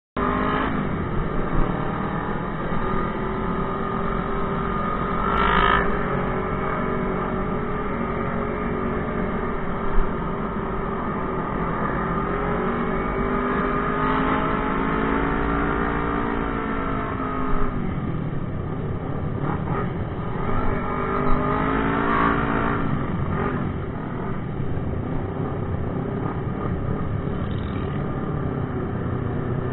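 Motorcycle engines riding in a group: the engine of the bike carrying the camera runs steadily, its pitch rising and falling with the throttle, among other motorcycles.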